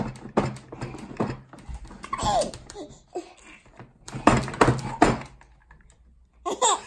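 Quick plastic knocks and clatter on a plastic high chair, in two clusters with a quieter stretch between, with a brief child's squeal about two seconds in.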